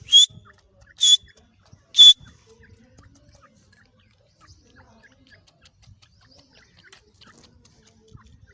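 Female francolin (teetar) calling: three short, harsh, high-pitched calls about a second apart.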